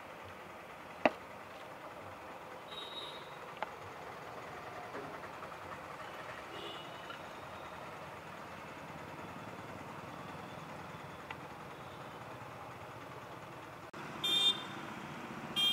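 Busy street background: a steady hum of traffic with a sharp click about a second in and a fainter one a few seconds later. Near the end the noise grows louder, with brief high-pitched tones.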